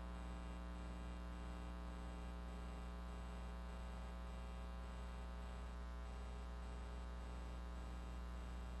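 Steady electrical hum and buzz on a broadcast audio line, unchanging throughout.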